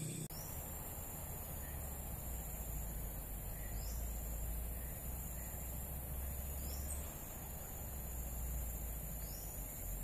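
Steady forest background: a high, even insect drone with a few faint bird calls now and then.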